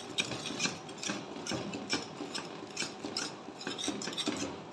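Wire whisk scraping and beating against the bottom and sides of a stainless steel pot as boiled rice in milk is mashed for kheer, in repeated rasping strokes about two a second.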